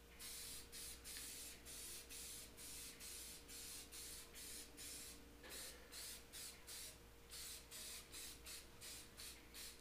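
Aerosol spray-paint can spraying high-heat engine enamel in short, quick bursts, two or three a second; faint.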